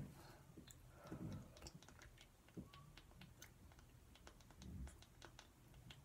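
Near silence: faint scattered light clicks and a couple of soft low thumps.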